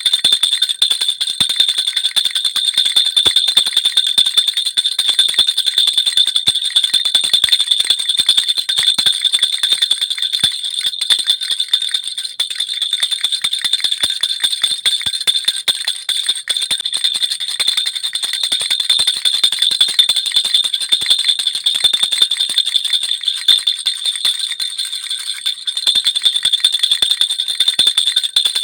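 Baby rattle (jhunjhuna) shaken without pause, a dense, continuous jingling over a steady high ringing.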